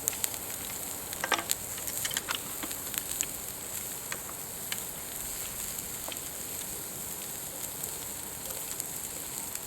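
Meat grilling over a wood fire: a steady sizzle with scattered sharp crackles and pops, which are thicker in the first few seconds.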